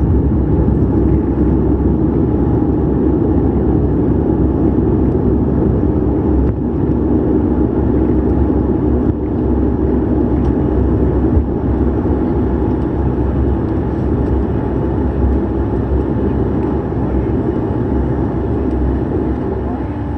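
Bombardier Q400's Pratt & Whitney PW150A turboprop and propeller running steadily at low power as the airliner rolls on the ground after landing, a dense drone heard from inside the cabin. The level eases slightly over the last few seconds.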